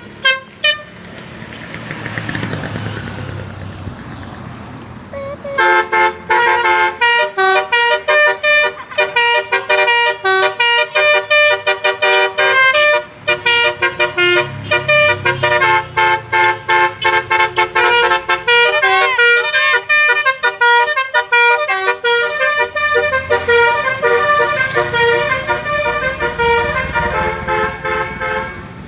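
Telolet horn, an electric multi-trumpet air horn on a Toyota Avanza, playing a long run of quick melodies with notes changing several times a second, and a short stretch of sliding, siren-like tones about two-thirds of the way through. The melody starts about five seconds in, after a few short toots and vehicle noise.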